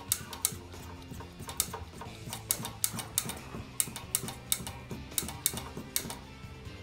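Irregular sharp clicks and crackles from a vacuum brake bleeder drawing brake fluid and air out of a motorcycle's front brake caliper into its catch bottle, over background music.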